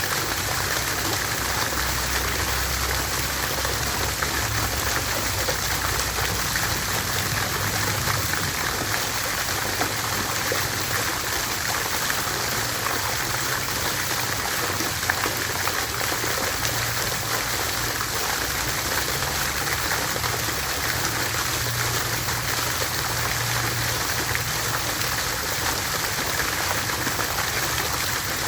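Water fountain running, its falling water splashing in a steady, unbroken patter.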